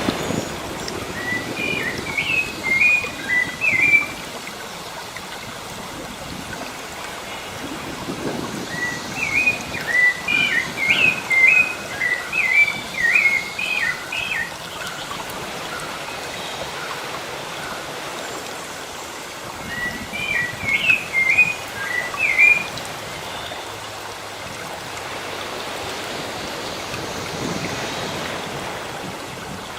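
A songbird singing in three bouts of quick, high chirping notes, the middle bout the longest, over a steady wash of sea waves.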